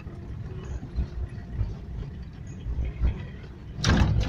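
A vehicle driving over a rough gravel road, heard from inside the cabin: an uneven low rumble from the tyres and body, with a loud jolt about four seconds in.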